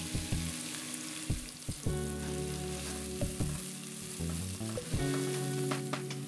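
Chopped onions sizzling steadily as they fry in hot oil in a pot, with a wooden spoon clicking and scraping against the pan as they are stirred. Background music plays underneath.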